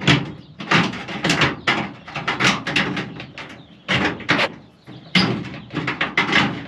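Irregular bursts of scraping and knocking as a solar fan's housing is pushed and worked into a freshly drilled hole in the coop's wooden (OSB) wall, a tight fit that needs trimming.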